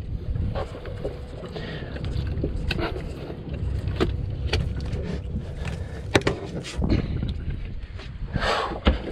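Steady low rumble on a small fishing boat, with scattered sharp knocks and clicks as a fish is handled and unhooked on deck.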